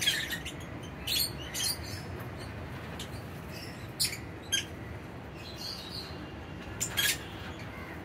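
Lovebirds giving short, sharp, high chirps, singly or in quick pairs every second or two, over a low steady background noise.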